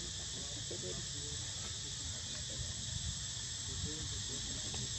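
Insects in a steady, high-pitched drone, over a low rumble.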